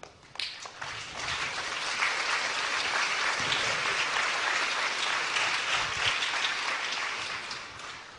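A large audience applauding, starting about half a second in, holding steady and fading away near the end.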